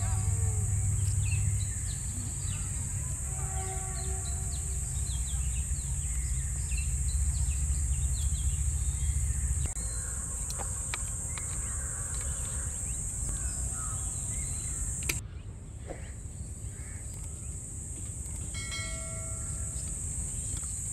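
Outdoor rural ambience: a steady high-pitched insect drone over a low rumble, with occasional bird calls and a few light clicks of a spoon against plates. The drone and rumble drop abruptly about fifteen seconds in.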